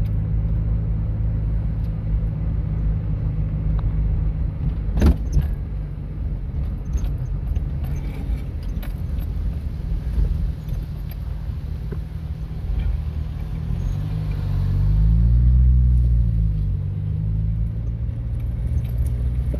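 Inside a moving car: steady low engine hum with road noise, a single sharp knock about five seconds in, and the engine note rising and then falling again, louder for a few seconds near the end.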